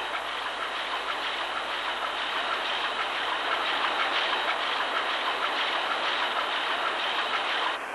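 Large two-stroke crosshead marine diesel engine running, heard from beside it: a steady mechanical clatter with fast, even ticking. The noise drops away just before the end.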